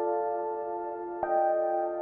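Electronic chime tones from a slot machine: a held, bell-like chord, with a new chord struck a little over a second in and left ringing.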